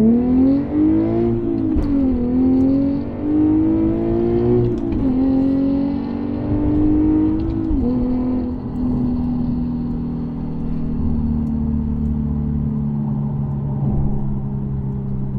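Infiniti G37S sedan's 3.7-litre V6, on an aftermarket exhaust, accelerating through the gears of its six-speed manual. The engine note climbs and drops sharply at three quick upshifts, about two, five and eight seconds in, then settles to a steady cruise.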